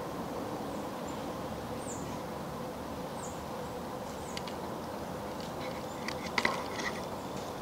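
Quiet woodland background with a steady faint hum and two brief high chirps, then a short cluster of sharp clicks and rustles near the end from the camera being handled and swung.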